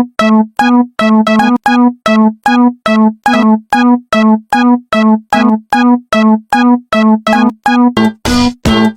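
Electronic railroad-crossing warning bell of the Japanese fumikiri kind, ringing one steady note over and over, about two and a half to three strikes a second. Near the end the strikes grow fuller.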